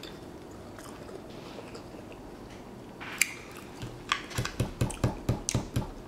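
A person chewing a mouthful of fruit salad with wet, open-mouthed smacking. It is quiet at first, then about three seconds in comes a quick run of about ten smacks, roughly five a second.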